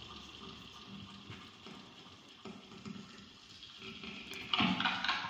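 Quiet experimental electronic music played live: a faint crackling, hissing texture with a few soft held tones, swelling into louder noisy bursts about four and a half seconds in.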